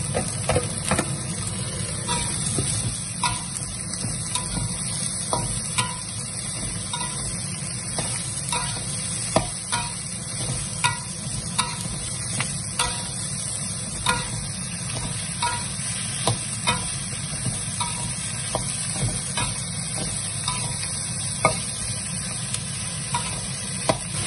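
Chopped onion and ginger sizzling in oil in a steel wok, with a metal ladle scraping and clacking against the wok as they are stirred, a clack every second or so, over a steady low hum.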